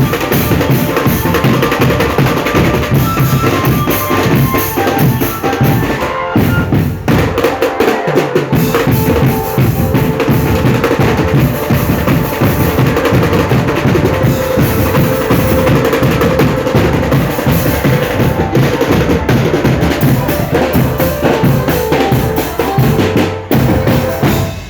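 A drum band playing: bass drums and snare drums beat out a busy rhythm with rolls, under a held melody line. The music cuts off at the very end.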